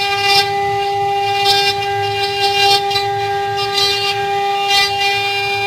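CNC wood-carving router running, its spindle giving a steady high whine while the bit cuts wood, with a swell of cutting noise roughly every second as the tool sweeps back and forth.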